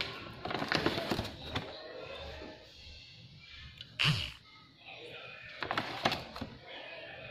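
Scattered handling noises at a wooden mortar and a plastic bag of chili powder: short rustles and knocks, with one sharper thunk about four seconds in.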